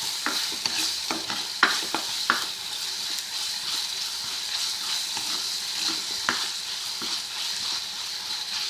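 Chopped onion, tomato and capsicum sizzling in hot oil as they are sautéed in a pan, with a spoon scraping and clicking against the pan as they are stirred, the clicks coming several times in the first couple of seconds and once more later.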